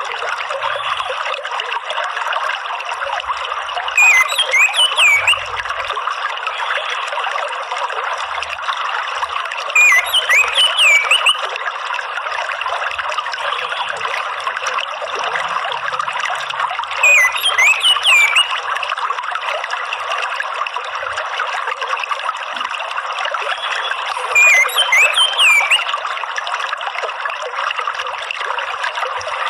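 Steady trickling, flowing water with a bird's short burst of high, sweeping chirps that comes back about every six and a half seconds, as in a looped bird-therapy track.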